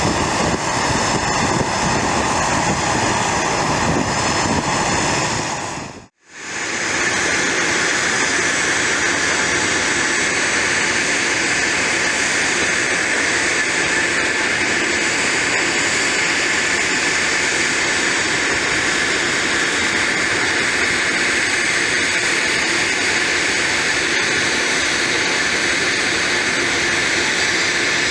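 Jet engines of an airliner climbing away after takeoff, a steady rush, until the sound cuts off sharply about six seconds in. Then the steady whine and rush of a Learjet business jet's twin rear-mounted turbofan engines as it rolls along the runway.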